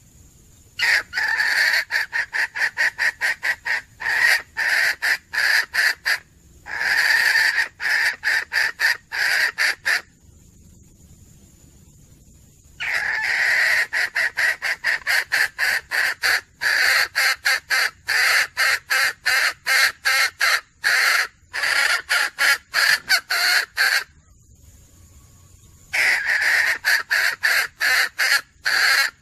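Red junglefowl hen calling: rapid runs of clucks, about four a second, in bouts of several seconds with short pauses between. It is the wild hen's call that draws a rooster to her.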